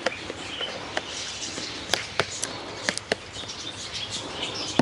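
Several sharp clicks and taps, with birds chirping faintly in the background.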